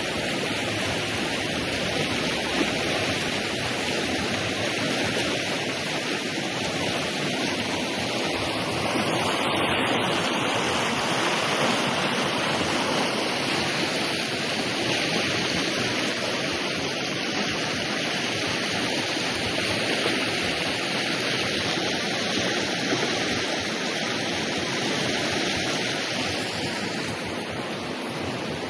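Steady rushing of a river's water as it flows out from under the ice in the spring thaw.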